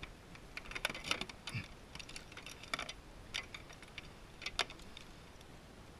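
Scattered sharp clicks and light knocks, the loudest a handful spread over a few seconds, of fishing gear and hands working against the plastic of a fishing kayak while a tarpon is held on the leader.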